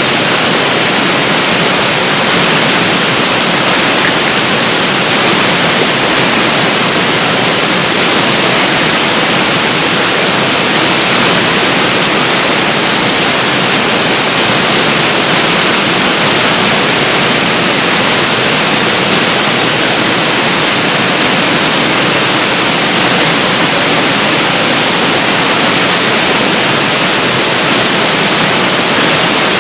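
Artificial waterfall: a steady, loud rush of falling water crashing down, unbroken and even throughout.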